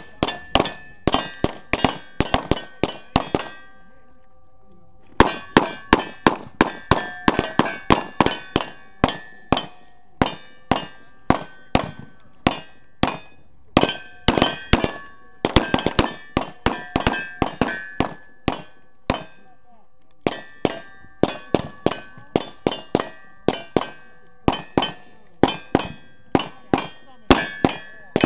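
Rapid strings of gunshots striking steel targets, each hit ringing out with the same metallic tones, at about three to four shots a second. The strings break off briefly a few seconds in and again near the middle.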